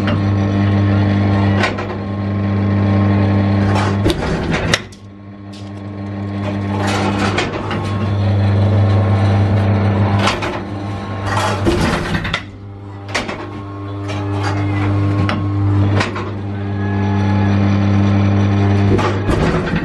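A steady electric machine hum with sharp knocks every few seconds, the cracks of hardballs being hit in a batting cage. The hum cuts out twice and swells back each time.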